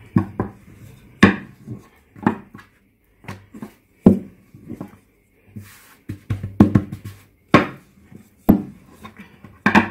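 Long thin wooden rolling pin rolling out yufka dough on a table, knocking and clacking against the tabletop in a series of irregular sharp knocks with short gaps between them.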